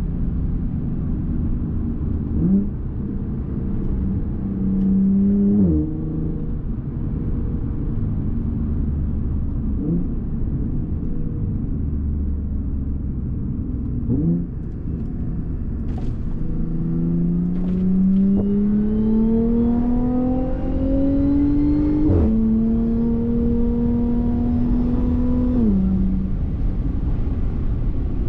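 Supercharged Audi 3.0-litre V6 engine under way through the gears. Several quick upshifts in the first half each drop the engine note, then a long pull of several seconds with the note climbing steadily, an upshift, a short steady stretch and another shift near the end.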